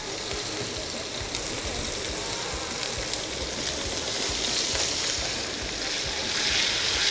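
Sausage pieces sizzling in a frying pan, beside a saucepan of water at the boil. The sizzle grows louder about two-thirds of the way through as the pan is tossed over the heat.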